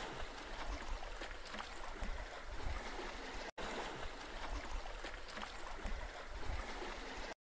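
Faint, steady babble of running stream water, with a momentary break about three and a half seconds in; it cuts off abruptly near the end.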